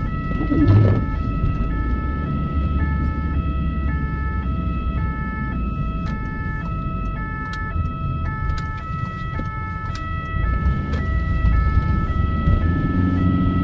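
Ambulance's two-tone siren sounding its alternating high-low pattern, about two changes a second, heard from inside the cab over engine and road rumble.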